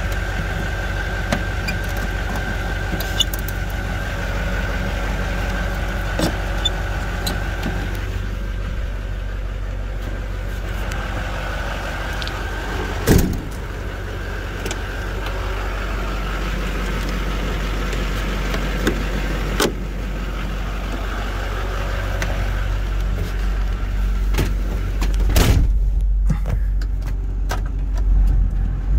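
Chevrolet C4500 truck's 6.6-litre turbo-diesel V8 idling steadily, with a few clunks from the cab door and panels being handled, the loudest about halfway through and again near the end.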